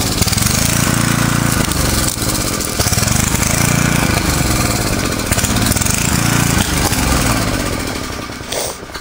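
Portable generator engine running loudly, its note swelling and easing every couple of seconds. It grows quieter near the end.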